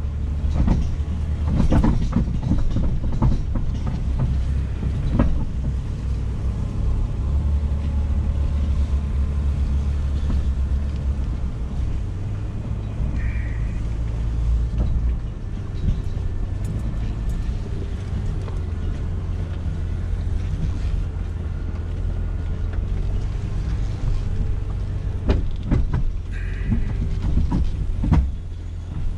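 Jeep Cherokee engine and drivetrain running steadily under the load of a towed log on a log arch, heard from inside the cab. Knocks and rattles come as the Jeep bumps over the rough trail, several in the first few seconds and again near the end.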